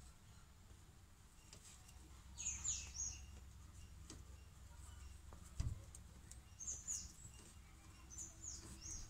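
Faint bird chirps, three short bursts of two or three quick falling high notes each, with a soft knock about halfway through.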